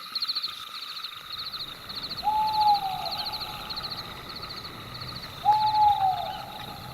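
An owl hooting twice, each a single drawn-out hoot that slides down in pitch, about two seconds in and again about five and a half seconds in. Underneath, night insects chirp in quick pulsed bursts, several times a second.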